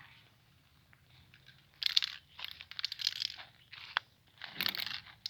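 Short bursts of crinkling, rustling handling noise, with a sharp click about four seconds in.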